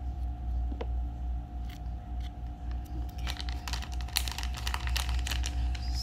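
Crinkling and crackling of a foil pouch being handled, starting about three seconds in, over a steady low hum.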